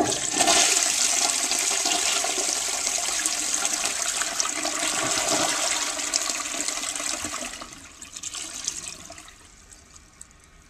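Flush of a 1943 Sentry Sanitary Corporation forward-trap washdown toilet bowl fed through a flush elbow from a wall-hung Standard 4050 tank. A strong rush of water starts suddenly and runs powerfully for about seven and a half seconds, then fades away over the next two seconds.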